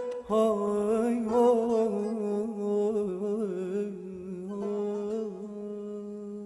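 Male voice singing a wordless, ornamented line in Persian classical style, its pitch wavering and bending, then settling on a long held note.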